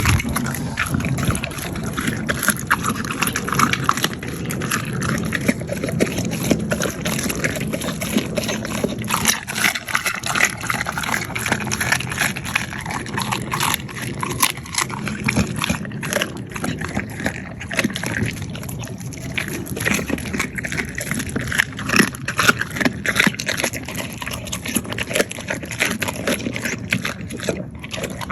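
A pit bull crunching and chewing food, with dense, irregular crunches going on throughout.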